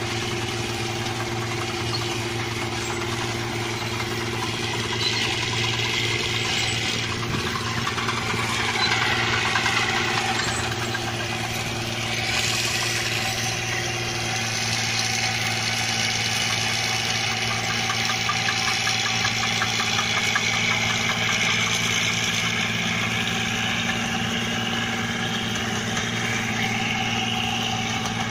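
Large rice combine harvester running steadily, its engine drone mixed with a dense mechanical clatter from the machine.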